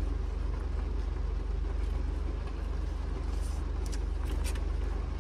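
Steady low rumble of a car's cabin, as with the engine idling, with a few short clicks about three to five seconds in as food and a plastic container are handled.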